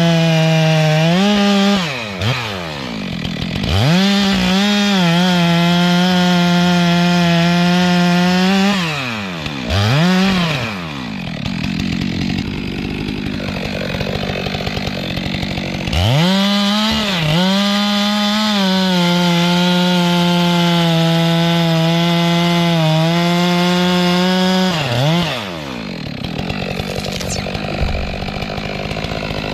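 Two-stroke Stihl chainsaw cutting wood at full throttle in three runs. The longest runs last about five and nine seconds. Between runs it drops back toward idle and revs up again, and it falls back to idle near the end.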